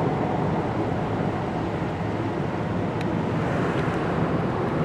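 Steady engine and road noise of a truck heard from inside the cab, with a small click about three seconds in.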